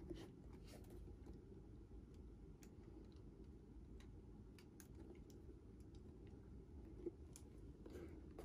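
Near silence with a few faint, scattered ticks and clicks from hands handling and turning over a new leather chukka boot.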